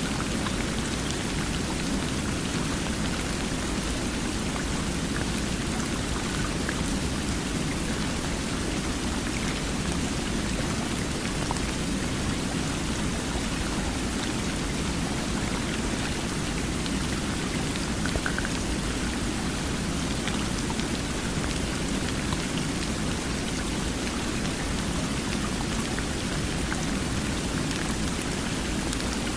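Flowing water, a steady, even rush of water noise with a few faint drip-like ticks.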